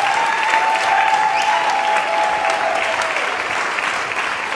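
Theatre audience applauding steadily, dense clapping with a few held cheers over it that die away about three seconds in.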